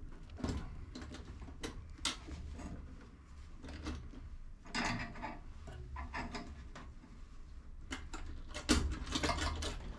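Hands working at the electric fuel pump assembly: scattered light clicks, knocks and rustles of hose clamps and metal fittings being handled and pulled free.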